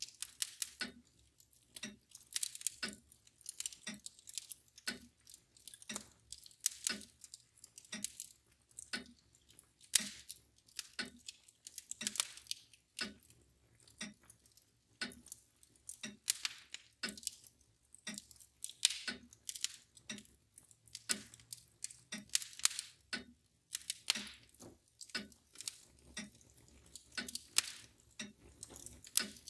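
Fire crackling with irregular sharp snaps and pops, over the steady ticking of a mantel clock at about one tick a second.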